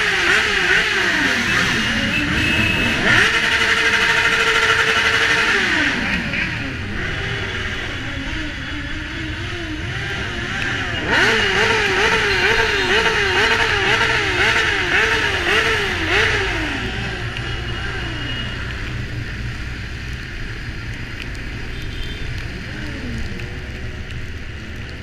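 Several motorcycle engines revving among a pack of bikes, pitches rising and falling. About eleven seconds in, one engine is blipped rapidly, about two revs a second for some five seconds, before the revving dies down toward the end.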